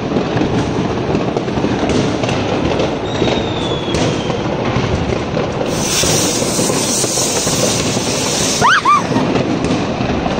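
Fireworks crackling and popping continuously. A ground fountain sprays sparks with a steady hiss from about six seconds in until almost nine seconds, and a short rising-and-falling whistle sounds near the end.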